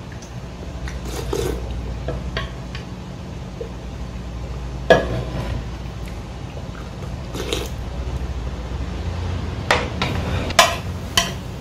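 Soup spoon clinking and scraping against a large ramen bowl as broth is scooped out. There are a handful of sharp clinks: the loudest comes about five seconds in, and several more come close together near the end.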